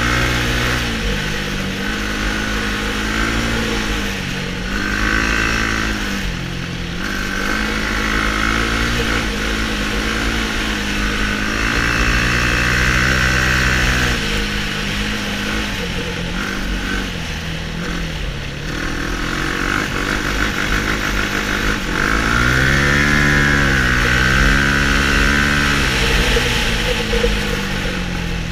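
Sport quad (ATV) engine heard from on board while riding, its pitch rising and falling several times as the throttle is opened and closed.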